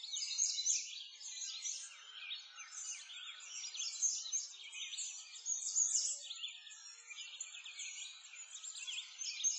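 A dense chorus of small songbirds chirping and twittering, many quick high calls overlapping without a break.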